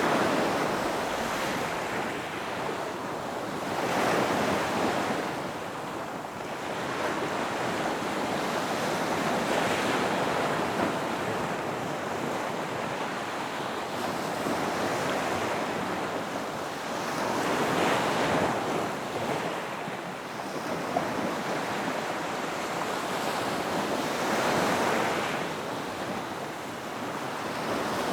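Ocean waves breaking and washing in, swelling and fading every several seconds, with some wind.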